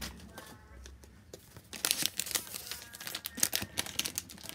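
Kraft paper envelope and paper sticker sheets being handled, rustling and crinkling in quick irregular bursts that start about two seconds in.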